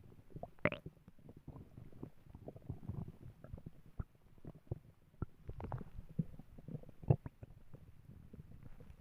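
Human stomach growling: irregular low gurgles and rumbles broken by scattered short pops and clicks, the sharpest about seven seconds in.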